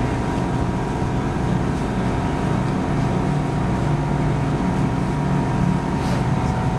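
Steady drone of running engines, strongest low down, with a thin steady whine above it.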